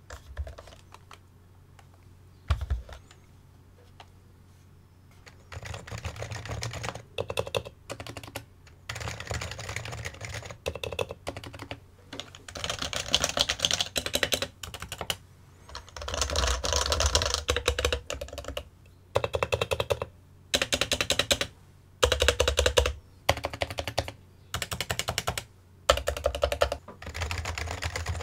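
Fast typing on a Topre electrostatic-capacitive keyboard, in bursts of a second or two with short pauses between them, after a few quiet seconds broken by a single knock.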